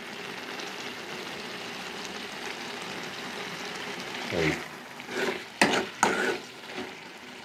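Ivy gourd curry sizzling steadily in a metal kadai. About four seconds in, a metal spatula stirs and scrapes the pan, with a couple of sharp knocks.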